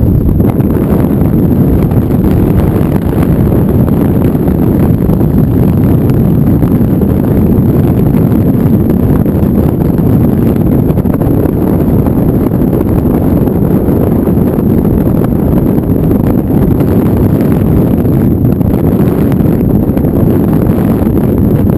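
Steady loud rumble of wind on the microphone and road noise from a vintage Packard straight-eight car on the move, with no distinct engine note standing out.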